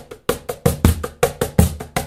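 Birch-ply cajon with its adjustable snare engaged and locked, hand-played in a quick groove of about five strokes a second. Deep bass tones alternate with sharper, brighter slaps.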